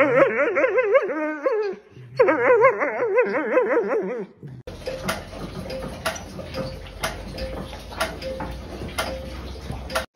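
A dog whining and grumbling in a long, warbling voice whose pitch wobbles rapidly up and down, in two runs with a short break about two seconds in, during rough play with another dog. About four and a half seconds in it cuts to a steady rushing noise with regular ticks about twice a second.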